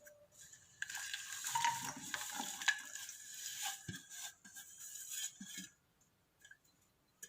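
Unrefined cane sugar (nattu sakkarai) being added to a pan of water with a spoon: a noisy scraping with light clinks of the spoon against the vessel. It stops about six seconds in.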